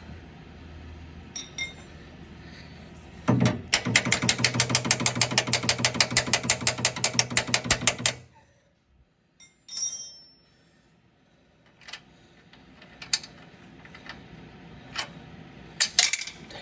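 A power tool runs for about five seconds on the upper control arm bolt, a steady motor hum with a rapid, even clatter of about ten strokes a second, stopping abruptly. Scattered sharp metallic clicks and taps follow.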